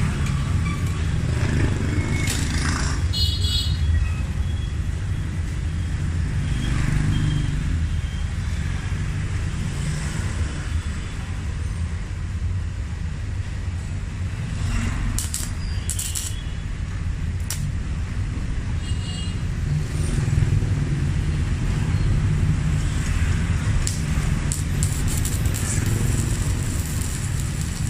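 Stick (MMA) arc welding with a 3.2 mm electrode on a Megatec mini inverter welder: an uneven crackle and sizzle from the arc, over a steady low rumble.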